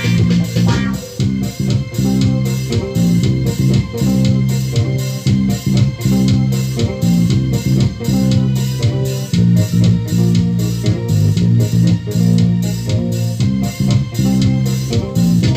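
Music with a strong bass line and guitar, played loud through four two-way speaker cabinets wired series-parallel on a single amplifier channel.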